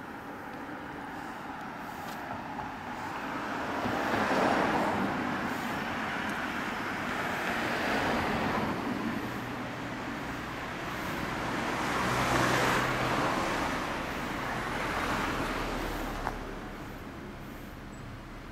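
Road traffic passing by: about four vehicles in turn swell up and fade away, one every few seconds.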